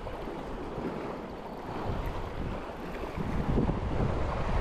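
Wind buffeting the microphone over the steady wash of surf on a beach, growing louder after about three seconds in.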